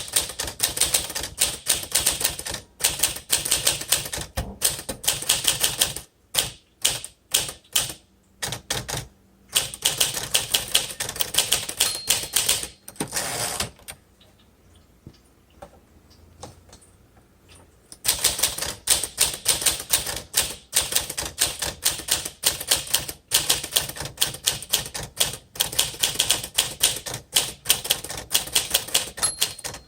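Fast keystrokes on a 1952 Smith Corona Silent manual typewriter, in runs of rapid clicking with a pause of about four seconds in the middle. The M key is a little slow, from grit and grime built up in the mechanism.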